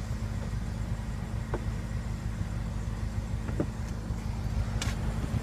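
Steady low rumble of a car idling, with a few faint clicks about one and a half, three and a half and five seconds in.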